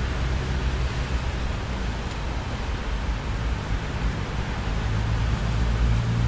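Steady rain hiss with a low, rolling thunder rumble underneath. The rumble swells about five seconds in.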